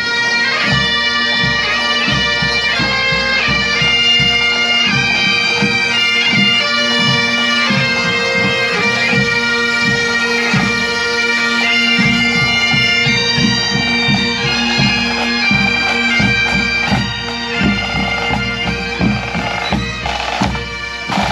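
Bagpipes playing a tune over their steady drone, with a drum beating a regular pulse underneath.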